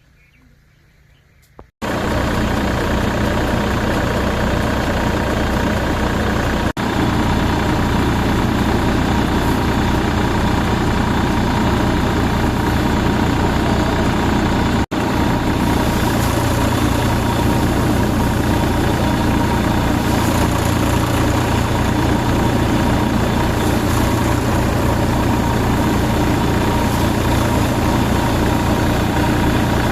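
Engine of a paddy-harvesting machine running steadily at a constant speed. It starts abruptly about two seconds in and drops out briefly twice.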